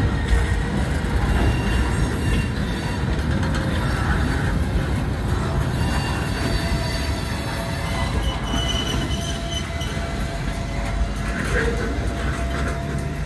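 Loaded centerbeam lumber flatcars of a freight train rolling steadily past, their steel wheels rumbling on the rails. A faint high wheel squeal comes and goes in the second half.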